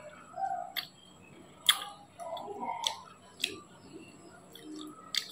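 Eating by hand: sharp, irregularly spaced clicks and cracks as pieces of shell are broken apart, with chewing and sucking sounds between them.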